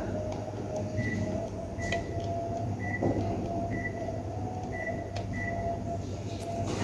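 Panasonic Eolia mini split air conditioner running: a steady hum with a slightly wavering mid-pitched tone, and short high chirps repeating roughly once a second.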